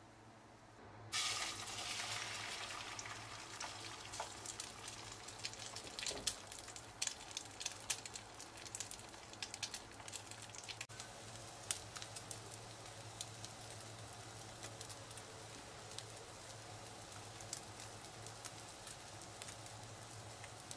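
Beaten egg with onion and chilli sizzling in oil in a nonstick frying pan as an omelette fries: a steady hiss with scattered crackles and pops. It starts suddenly about a second in, is loudest just after, and settles lower as the egg sets and browns.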